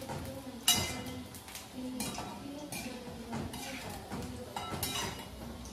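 Metal ladle clinking and scraping against a steel kadai of frying pakoras, with several sharp clinks, the loudest about a second in.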